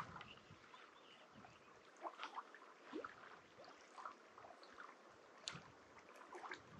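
Near silence: quiet outdoor ambience with faint, scattered small ticks and clicks.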